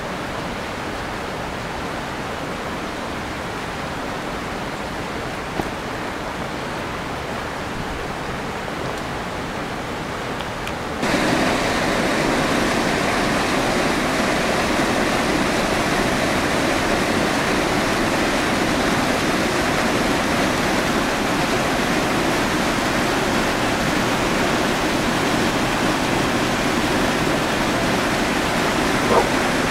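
A softer steady rushing noise, then a sudden jump about eleven seconds in to louder, brighter rushing water from a river's rapids running steadily below.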